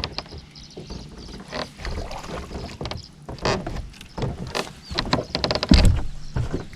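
Irregular knocks, clicks and rattles of gear being handled in a small fishing boat, with one heavy low thump near the end.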